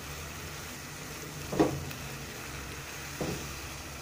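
Spatula stirring grated carrots and sugar for gajar halwa in a steel pan, with a faint sizzle as it roasts. Two strokes of the spatula against the pan stand out, the louder about one and a half seconds in and another near three seconds, over a low steady hum.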